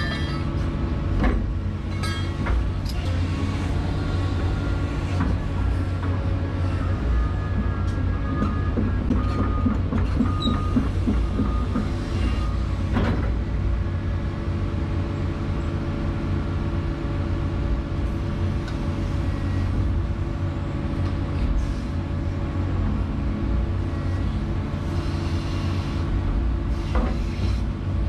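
Excavator diesel engine running steadily, heard from inside the operator's cab, with the hydraulics working as the bucket digs soil out of the shoring box. There is a single clunk about 13 seconds in.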